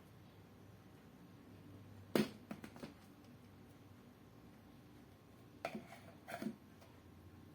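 A few light knocks and clicks of objects being handled. The sharpest comes about two seconds in, followed by a couple of smaller ones, and another short group comes about six seconds in, over a faint steady hum.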